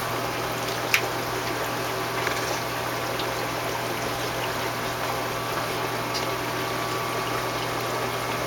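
Aquarium sump running: a steady pump hum with water and air bubbles churning in the tank. A single sharp click about a second in, with a fainter tick a second later.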